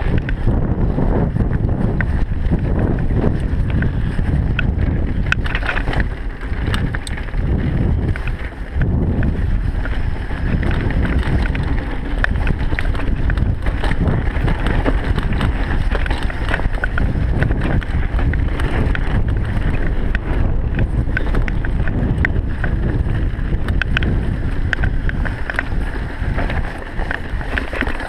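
Wind buffeting an action camera's microphone during a mountain bike descent on dirt singletrack, over tyre rumble and frequent small clicks and rattles from the bike bouncing over the trail. The wind noise eases briefly a few times.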